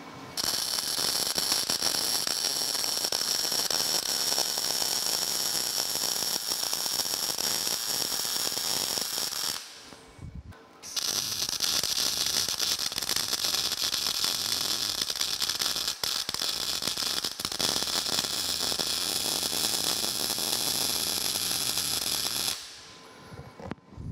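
Electric arc welding of steel tube legs onto a steel plate: a steady, crackling sizzle from the arc in two long runs, broken by a short pause about ten seconds in and stopping a second or two before the end.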